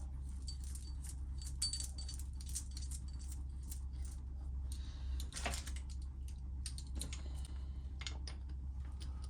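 Irregular light metallic clinks and clicks of hand tools and small engine parts as a cam-chest gear is refitted and its fastener snugged, with a busier cluster of clinks about five seconds in, over a steady low hum.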